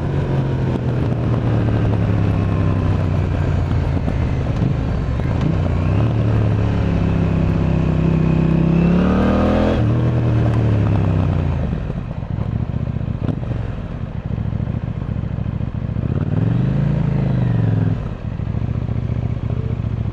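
KTM 890 Duke R parallel-twin engine running through an Akrapovic exhaust. The engine note climbs to a peak about halfway through and then falls away, with another short rise and fall in revs near the end.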